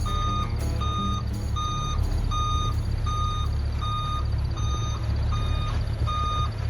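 Reversing alarm of a heavy diesel vehicle beeping steadily as it backs up, about one beep every three-quarters of a second, over the low rumble of its engine.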